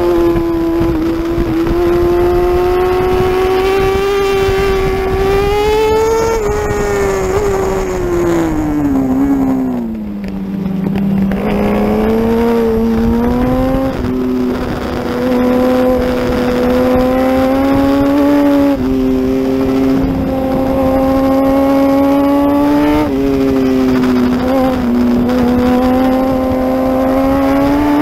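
Racing superbike's engine heard from on board at full race pace. It revs high, falls steeply in pitch under braking and downshifting about ten seconds in, then climbs again with abrupt jumps in pitch at each gear change.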